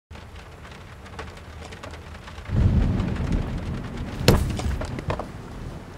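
Light rain falling, with a low rumble of thunder rolling in about two and a half seconds in and a sharp knock a little after four seconds.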